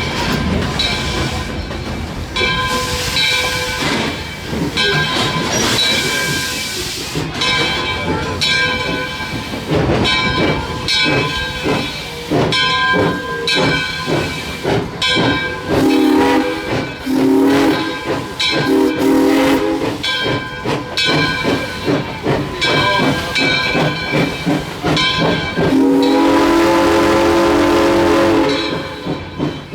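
1920-built 2-8-0 steam locomotive working under steam, with a steady rhythm of exhaust chuffs and steam hiss. Its steam whistle sounds two blasts just past halfway and a long blast of about three seconds near the end.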